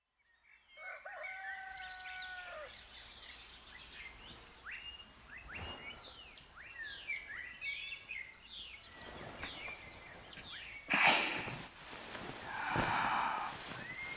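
Dawn sound effects: a rooster crows once, a long call near the start, followed by many short chirps of small birds over a steady high hiss. About eleven seconds in, louder noisy, breathy sounds come in. The ambience marks the next morning in the story.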